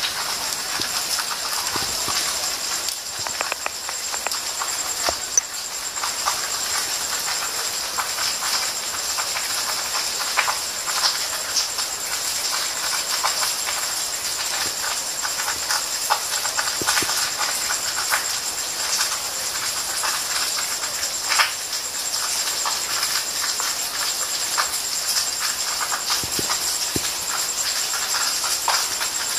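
Steady rain falling, with scattered drops tapping irregularly on hard surfaces.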